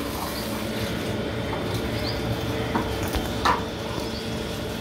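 Steady rush of water running from an open tap, with a few faint, high, short chirps and a sharp knock about three and a half seconds in.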